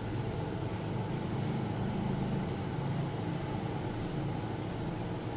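Milk tea boiling and frothing in a steel saucepan on a gas burner: a steady low rumble of bubbling and burner flame.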